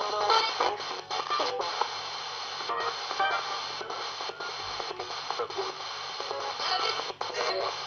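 RadioShack 20-125 portable radio rapidly sweeping the FM band as a spirit box: a steady hiss of static broken up every fraction of a second, with brief snatches of music and voices from the stations it passes.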